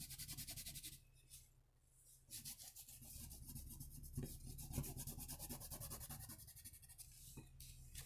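Wax construction paper crayon scratching across construction paper in rapid back-and-forth coloring strokes. The strokes pause about a second in, then resume, with a few faint ticks.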